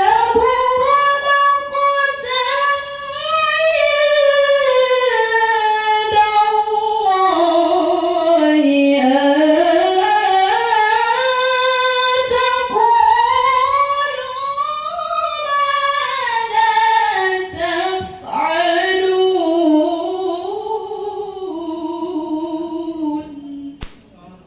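A woman's voice in melodic Qur'an recitation (tilawah), drawn out in one long, nearly unbroken phrase. The pitch winds up and down in ornamented glides, dips low in the middle and settles lower toward the end before stopping.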